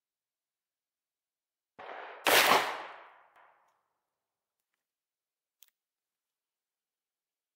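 A single shot from a Remington Old Model Army .44 percussion revolver firing a black-powder paper cartridge, about two seconds in. A softer sound comes half a second before the sharp report, which fades over about a second. A faint click follows a few seconds later.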